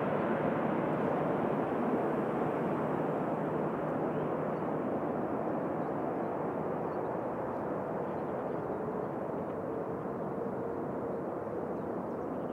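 Jet engines of a twin-engine widebody airliner on final approach, a steady rushing noise that slowly fades as the aircraft moves away.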